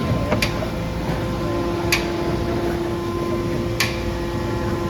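Moulded wood-pallet press machinery running with a steady hum and low rumble. A short sharp click or hiss repeats about every two seconds.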